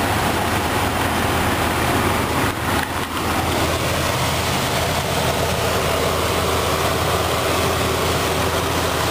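2000 Jeep Grand Cherokee's 4.0-litre inline-six engine idling steadily.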